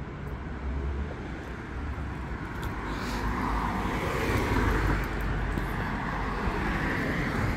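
Street traffic, with a car driving past whose tyre and engine noise swells to its loudest about halfway through and then fades.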